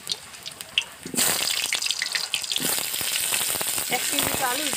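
Hot soybean oil sizzling in a metal karahi as cut potato chunks are dropped in to fry. The sizzle is faint at first and jumps loud about a second in as a batch of pieces lands, with light knocks of pieces hitting the pan.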